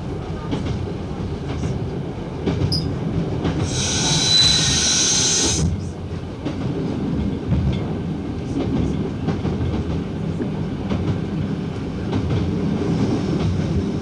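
Diesel multiple unit running along the line, heard from its front cab: a steady rumble of engine and wheels on the rails. About four seconds in comes a loud, hissing, high-pitched burst lasting about two seconds.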